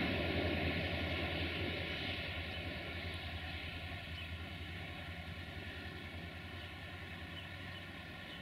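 Passenger train pulled by a CFR class 64 'GM' diesel-electric locomotive running away, its engine's low steady drone and the rolling of the coaches fading as it recedes.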